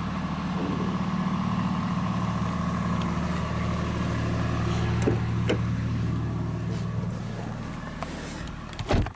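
A car engine idling steadily, fading out about seven seconds in. Two short clicks come around the middle as a car door is opened, and a heavy thump near the end as the door is shut.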